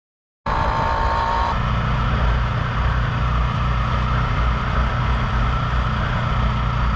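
Sport motorcycle engine running steadily at road speed, heard from the rider's seat under a steady rushing noise. A brief dropout of silence comes right at the start, and the engine note changes about a second and a half in.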